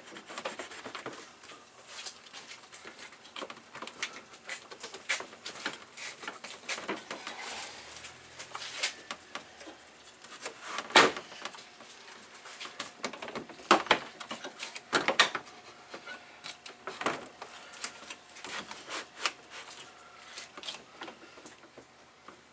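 Irregular plastic clicks, knocks and scrapes as hands work the cooling-fan shroud and radiator into place in the engine bay, with a few sharper knocks in the middle.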